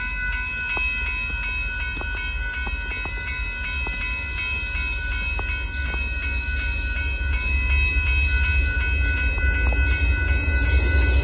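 An approaching Amtrak passenger train, the Texas Eagle, rumbling low and growing louder over the last few seconds. Through it rings the grade-crossing warning bell, a steady high ringing.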